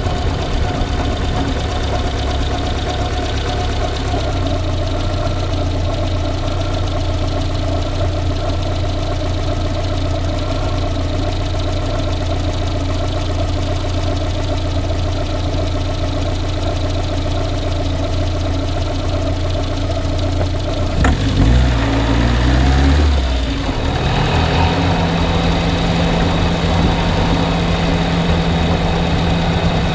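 Car engine idling steadily with the knock in the engine that the owner is recording. About two-thirds of the way in there is a sharp click, then a brief, louder stretch whose pitch slides about, before the sound settles into a new, steady tone.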